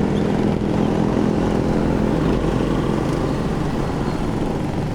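A vehicle on the move: steady engine hum under road and wind noise. A low droning tone fades about halfway through.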